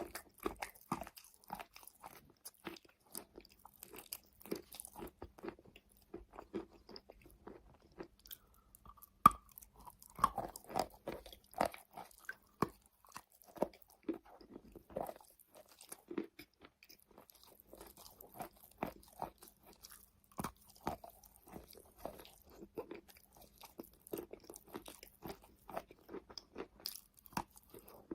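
Close-miked biting and chewing of soft wet chalk: a steady run of irregular soft crunches and crackles, with one sharper, louder crunch about nine seconds in.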